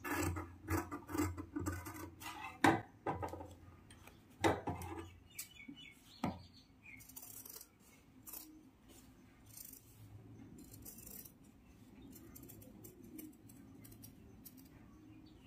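Scissors cutting through folded stiff canvas interfacing: a quick run of sharp snips over the first five seconds, one more snip just after six seconds, then quieter rustling of the canvas being turned with a few faint snips near the end.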